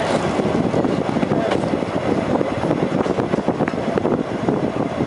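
Narrow-gauge electric rack railway train running, heard from on board: a steady rumble and clatter of wheels on the track, with many small clicks and rattles.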